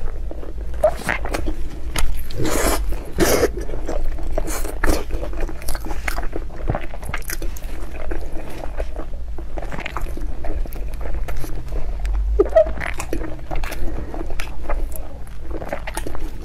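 Close-miked eating: a person biting and chewing, with frequent irregular wet smacks and clicks.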